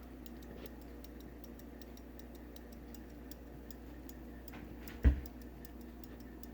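Antique Jaquet Droz fusee pocket watch movement running, its escapement giving a rapid, even ticking. A single low thump comes about five seconds in.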